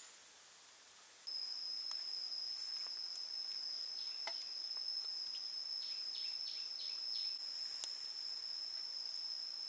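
An insect's steady, high-pitched shrill call, one unbroken pure note that starts abruptly about a second in. A few faint soft clicks and taps sound underneath it.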